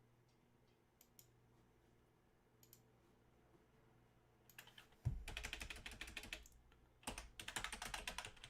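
Typing on a computer keyboard: a few scattered faint key clicks, then two quick runs of keystrokes, each lasting over a second.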